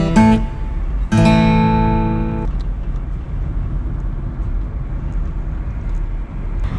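Acoustic guitar music: plucked notes, then a strummed chord about a second in that rings and stops abruptly. A steady low rumble follows.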